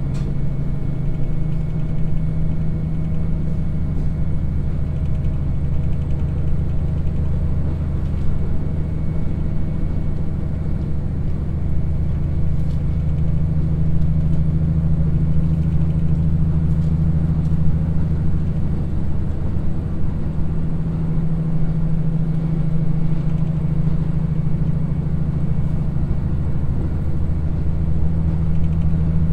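Cabin running sound of a KiHa 54 diesel railcar, its twin Niigata DMF13HS diesel engines droning steadily under load as it climbs a grade at about 60 km/h, with a few faint clicks from the running gear.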